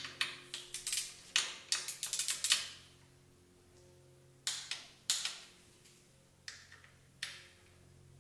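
Hand screwdriver clicking in quick, irregular runs as it turns bolts into an aluminium engine ladder frame: a dense burst of clicks, a pause, then a few more clicks.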